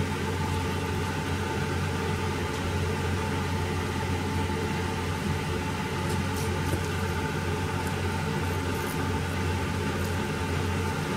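Steady machine hum in a kitchen, with a few faint clicks of a kitchen knife against a plastic cutting board as it cuts through cooked chicken drumsticks.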